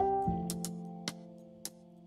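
Background music: a chord rings out just after the start and slowly fades, with sharp ticks every half second or so.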